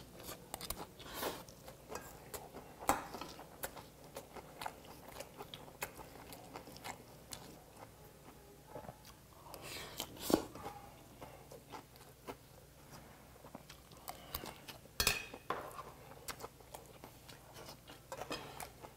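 Close-up chewing and crunching of a mouthful of beef tartare bibimbap with crisp raw vegetables. A metal spoon clinks in a stainless steel bowl, with a few sharper clicks scattered through.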